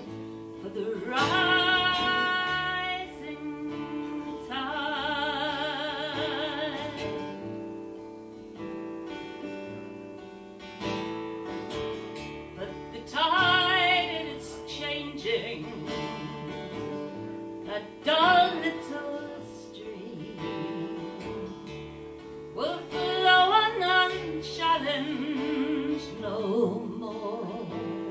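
A woman singing live to her own acoustic guitar, in several separate phrases whose long held notes waver with a wide vibrato, over steady guitar accompaniment.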